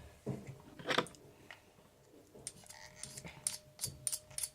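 Faint scattered clicks and taps of a teaspoon against a plastic container as gouache paint is put into slime glue, coming several to the second in the second half.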